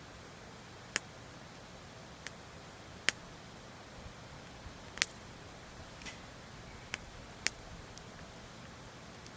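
Wood fire crackling: about eight sharp, irregular pops and snaps, the loudest about three and five seconds in, over a faint steady hiss.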